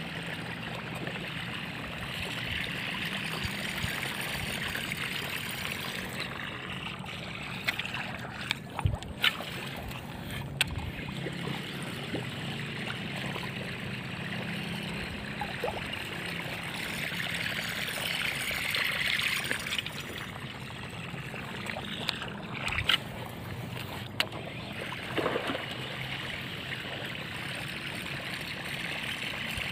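Water lapping around bamboo floating fish-cage rafts with a steady rush of wind and a low steady hum, broken by a few sharp clicks and knocks from handling a baitcasting rod and reel, about eight to eleven seconds in and again around twenty-three seconds.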